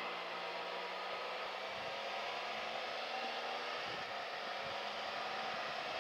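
Steady wind rush on the helmet microphone of a motorcycle riding with the face shield open, with a faint steady engine hum underneath.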